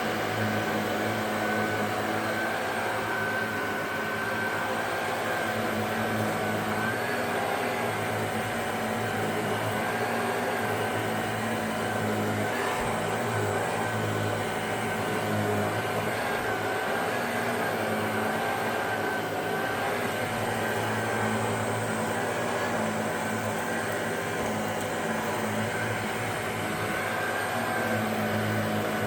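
Shark DuoClean NV801UK vacuum cleaner running steadily, with a constant motor whine over its airflow noise.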